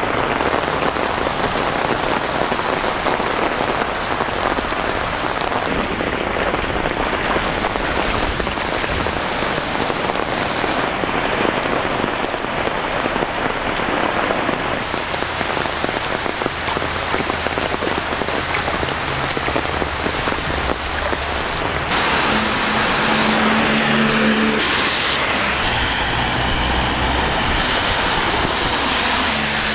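Heavy rain pouring onto wet roads and pavement, with storm water running, across several clips one after another. In the later part a vehicle engine hums low beneath the rain.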